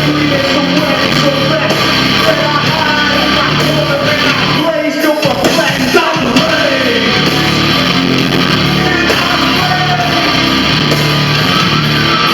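Loud live heavy rock band playing, with bass, drums and guitar under a singer's yelled vocals. About five seconds in the low end drops out briefly before the full band comes back in.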